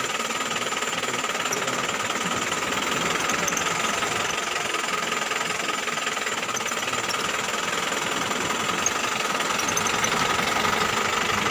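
A motor vehicle's engine running steadily with a fast, rattling clatter.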